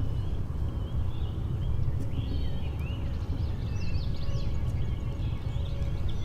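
Several songbirds singing and chirping in quick overlapping phrases, over a steady low rumble.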